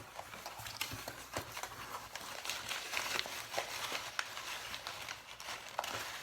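Handling noise from the snub-nosed revolver being picked up and turned over in the hands: a steady run of irregular small clicks, taps and rustles.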